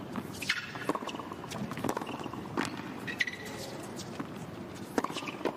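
Tennis rally on a hard court: several sharp racket-on-ball hits, spaced unevenly about half a second to two seconds apart, with short high squeaks of tennis shoes on the court between them.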